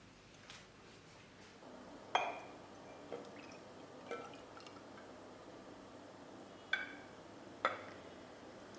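Filled glass bottles clinking as they are handled and set down: five sharp chinks with a short ring. The loudest comes about two seconds in, and two more strong ones come close together near the end.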